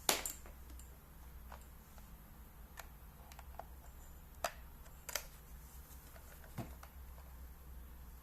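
Irregular clicks and taps from handling an LED digital projection alarm clock, such as its buttons being pressed. A sharp click comes right at the start, then about six fainter ones spread unevenly.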